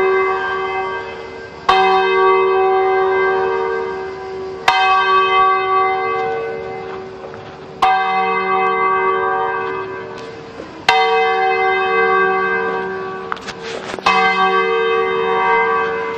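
A single church bell tolling slowly. It is struck five times about three seconds apart, and each stroke rings on and fades before the next.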